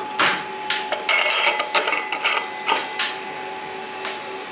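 Metal clicks and clinks of a hub motor's steel axle being fitted by hand into the bearings of the cover's hub: a dozen or so sharp knocks, with a quick cluster about a second in.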